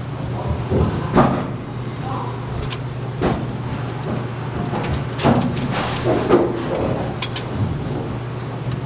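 Work on a bowling pinsetter: irregular knocks and clanks of machine parts, about five in all, over a steady low machine hum.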